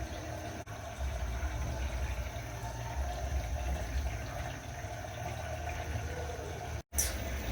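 LG 9 kg front-loading washing machine at the start of its cycle, water rushing in as it fills over a low steady hum. The sound cuts out briefly about seven seconds in.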